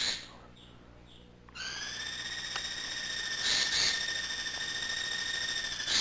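A steady, high whistle-like tone starts abruptly about a second and a half in and holds level. Short double calls break over it twice.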